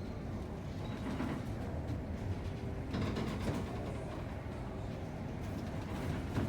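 Steady low mechanical rumble of the ferry Soleil under way, with brief surges of rushing noise now and then.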